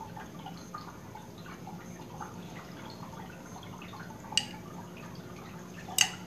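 Homemade aloe vera gel being poured into a small 100-gram container, with soft wet drips and plops, and two sharp taps, one about four seconds in and one near the end.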